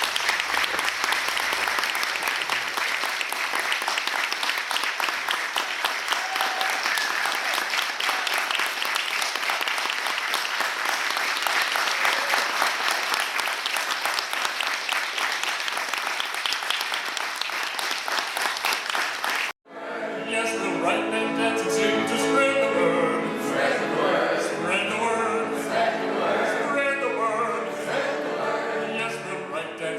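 Audience applauding steadily for about twenty seconds, then a sudden cut to music with operatic singing.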